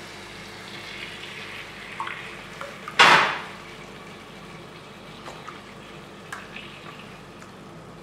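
Cooking cream poured from a glass into a hot pot of sautéed shrimp and onion, which sizzles steadily. About three seconds in the cream hits the hot pot with a loud burst of sizzling that dies down over half a second. There are a few light clicks against the pot.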